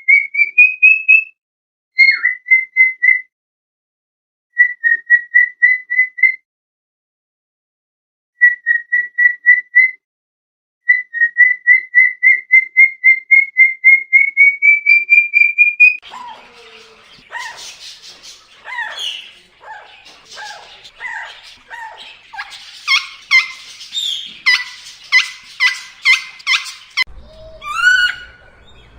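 Indian ringneck parrot whistling in quick runs of clear, rapid notes that come in bursts, the longest run climbing slowly in pitch. After about sixteen seconds it switches to harsher chirps and chattering squawks, including a fast regular run of repeated calls, and a low hum comes in near the end.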